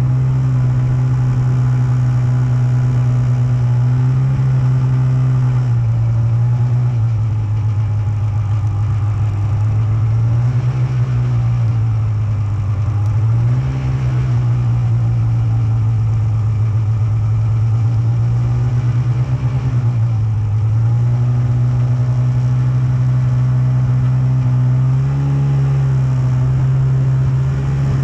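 Snowmobile engine running steadily under way, its pitch dipping and rising back several times as the throttle eases and opens.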